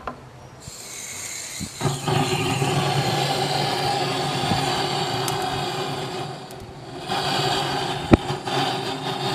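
A small motor running steadily at one pitch with a hiss of air. It dips briefly about six seconds in and comes back up, with a sharp click near the end.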